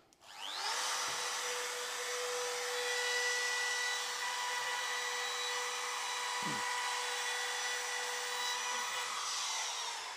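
Trim router switched on, spinning up within the first second to a steady high whine as it cuts a small chamfer along the edge of a wooden stool's base, then switched off and winding down near the end.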